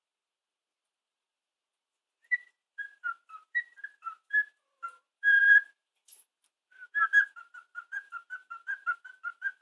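Cockatiel whistling a learned tune in short, pure notes, with one longer held note in the middle and a quick run of notes, about four a second, near the end.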